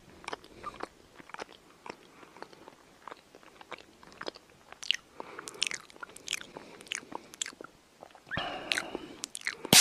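A cat's mouth noises at night: a string of quick, irregular wet clicks and smacks from the cat working its mouth, with a louder stretch of rustling near the end.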